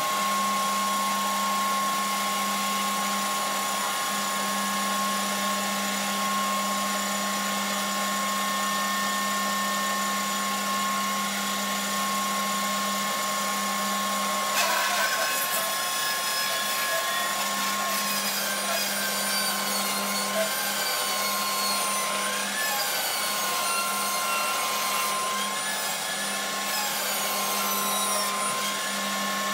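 Felder bandsaw with a 1¼-inch logging blade ripping a blue cedar log: a steady machine hum and whine, joined about halfway through by a harsher cutting noise whose high tones waver up and down.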